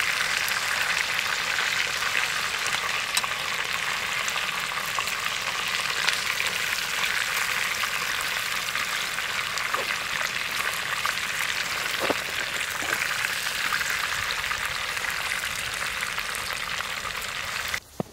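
Trout pieces frying in a small pan on a camp stove: a steady, even sizzle, with a few light clicks of metal tongs against the pan as the fish is turned. The sizzle cuts off suddenly near the end.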